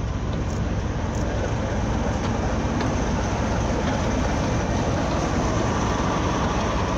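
Class 33 diesel locomotive D6566 running as it hauls a train of coaches in, its Sulzer eight-cylinder engine giving a steady rumble that grows a little louder as it approaches.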